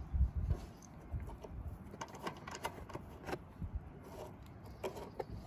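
Scattered light clicks and taps of wire ends and metal parts being handled at a water heater element's terminal block, with a few low thumps in the first half second.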